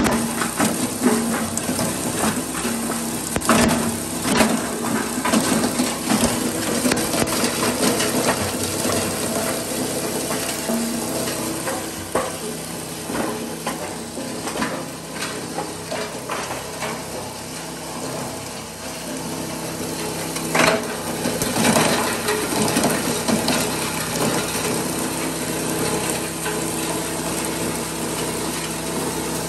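Cumberland plastic granulator's 7.5 hp three-phase motor running while the cutter grinds plastic pieces into regrind: a steady machine hum under constant irregular rattling and crackling.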